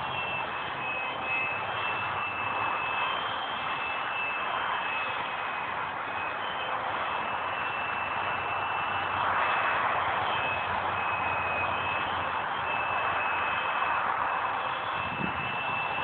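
Thin high whine of a micro RC model jet's small electric motor and propeller in flight, wavering slightly in pitch over a steady hiss.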